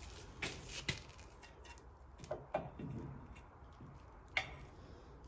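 A few scattered light clicks and knocks of small metal machine parts being handled and fitted, irregular and with pauses between them.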